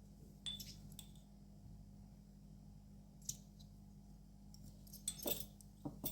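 Faint, scattered light clicks and taps of kitchen utensils while spice powder is sprinkled over a raw lamb leg, a small cluster of them near the end, over a low steady hum.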